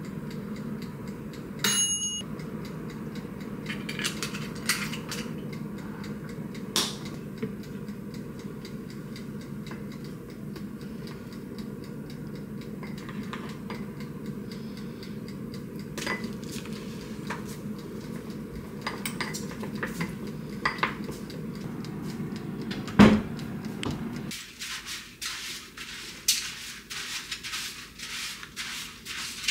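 Soy-sauce dressing being poured and stirred in a small glass bowl with a wooden spoon: scattered knocks and scrapes against the glass, with a ringing glass clink near the start and one sharp knock about 23 seconds in. A low steady hum runs underneath and cuts off suddenly about 24 seconds in, after which the spoon ticks against the bowl rapidly as the dressing is spooned out.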